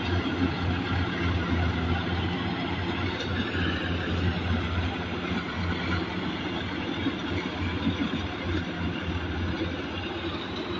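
A machine or vehicle engine running steadily, with a constant low hum under a rumbling noise.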